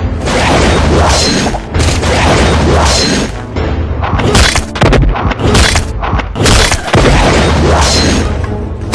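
Action-film fight soundtrack: loud dramatic music with a throbbing bass and several sharp dubbed impact hits and booms.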